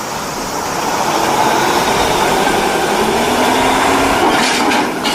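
A steady engine-like running sound over a rushing noise, with a hum that rises slowly in pitch.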